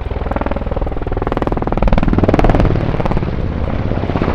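NH-90 helicopter flying past, the fast beat of its four-blade main rotor swelling toward the middle, with a whine that drops in pitch as it passes.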